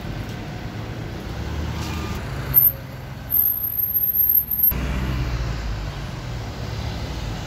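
Motor vehicle engines and street traffic in a steady low rumble, with a few louder thumps around the middle.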